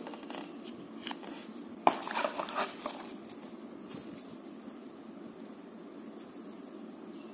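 Hands handling unboxing packaging and accessories: a few light clicks, then a sharp tap about two seconds in followed by about a second of crinkling and rustling, over a steady low background hum.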